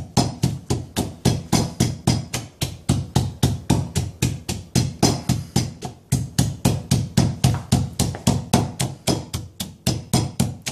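Wooden pestle pounding in a deep wooden Thai mortar, a steady knocking of about four strokes a second, as long beans are bruised with chili and garlic for green papaya salad.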